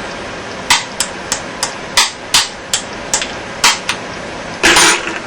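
Sharp metal-on-metal taps, about a dozen at uneven intervals, as a pin punch is struck to drive the trigger-assembly retaining pins out of a pump-action 12-gauge shotgun's receiver, with a longer, louder clatter near the end.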